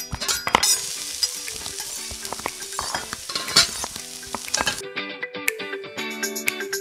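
Food sizzling in hot oil, a dense hiss full of crackling pops, with faint music under it. The sizzle cuts off about five seconds in and music takes over.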